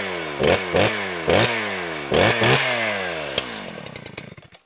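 Small petrol engine revved in about five quick throttle blips, its pitch sliding down after each, then winding down and dying away near the end.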